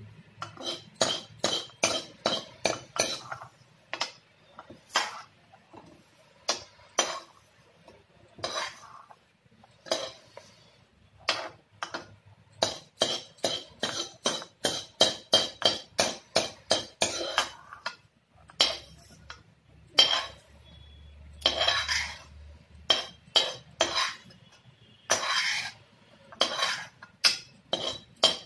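Steel ladle scraping and clinking against a metal kadhai in quick, irregular strikes, as dry-roasted cumin seeds are scooped out of the pan.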